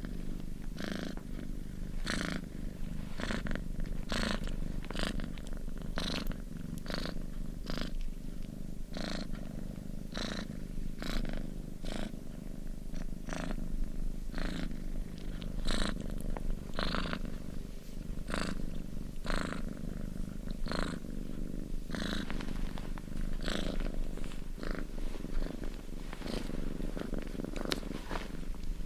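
Domestic cat purring steadily: a continuous low rumble with a rasping lift about once a second.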